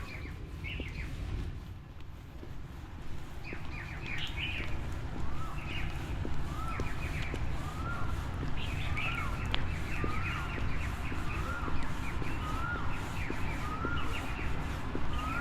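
Birds calling: from about five seconds in, a short rising-then-falling note repeats about once a second, with clusters of higher chirps between, over a steady low rumble.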